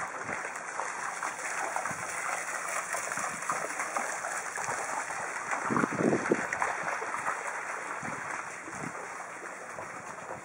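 Steady rushing outdoor noise, water-like in character, with a few soft low thumps, the strongest about two-thirds of the way in.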